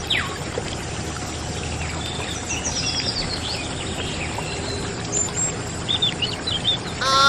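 Steady splashing of water pouring from a miniature pump's outlet pipe into a small pool, with short bird chirps over it. A brief voice-like exclamation starts at the very end.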